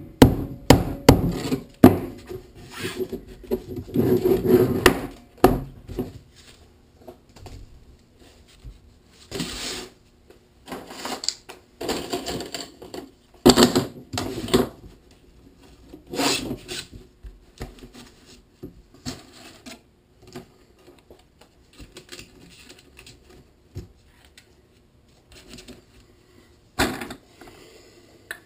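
Plastic pipe frame pieces knocking on a wooden workbench and rubbing as they are slid through the fabric sleeves of a cat hammock. A quick run of knocks fills the first few seconds, followed by scattered knocks, clicks and rustling, with one sharp knock near the end as plastic elbow fittings go onto the pipe ends.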